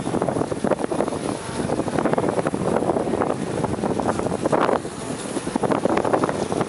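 Wind buffeting the microphone in irregular gusts, over the rushing noise of a boat at sea.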